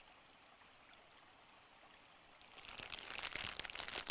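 Plastic zip-top bag crinkling and squelching as raw shrimp are rubbed around inside it in oil and chili spice rub, starting about two and a half seconds in after a near-silent start: a dense run of small crackles.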